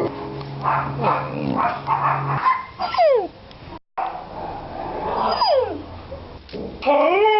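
Dog yawning with squeaky, whining vocalisations: several high whines that slide downward in pitch, the last one rising and then falling. A low steady drone runs under the first couple of seconds.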